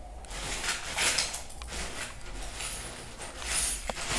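Scraping and sliding of furniture parts being handled during cabinet assembly, in several swishing surges, with a couple of sharp clicks.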